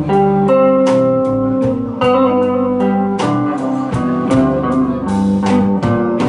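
Live blues band playing an instrumental fill between sung lines: a guitar line with sustained notes over a steady drum beat.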